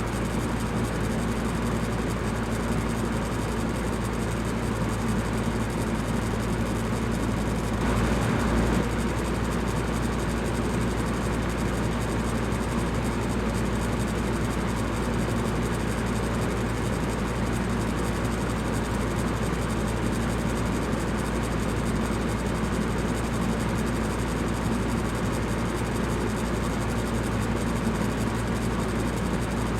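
Electric fan running steadily: an even whooshing rush of air over a low motor hum, with one brief slight swell about a quarter of the way in.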